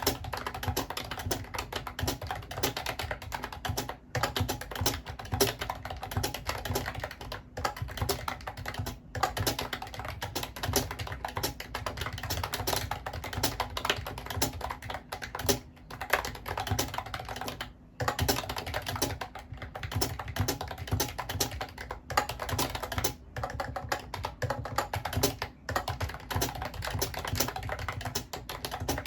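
Continuous fast typing on a Mofii Candy wireless keyboard: a dense run of key clicks broken by a few short pauses.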